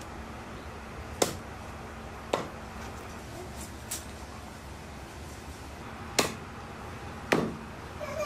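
Five sharp knocks at irregular intervals of one to two seconds, over a steady low background noise.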